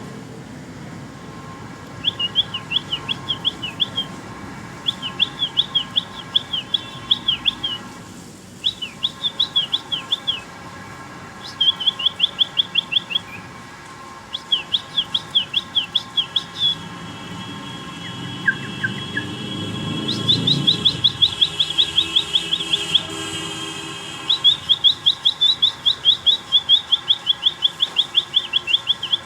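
Baby birds chirping: runs of quick, high chirps, each run lasting a few seconds with short pauses between, over a faint steady hum.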